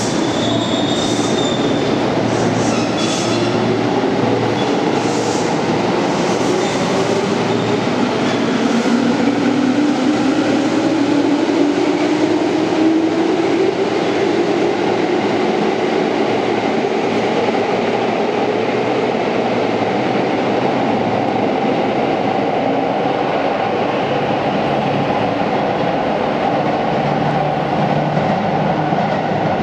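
JR East 205 series 3100 electric commuter train pulling out of an underground station, its motor and gear whine rising steadily in pitch over the first dozen seconds as it gathers speed. A few sharp clicks come early, and then a steady running rumble that echoes off the platform.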